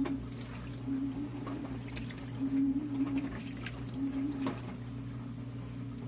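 Top-load washing machine agitating a full load: its motor hums in strokes that come and go about every second and a half, while the water and clothes slosh and splash in the drum.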